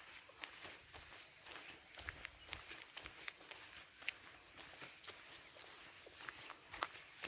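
A steady high-pitched insect chorus, with irregular footsteps of someone walking outdoors, short light clicks a few times a second.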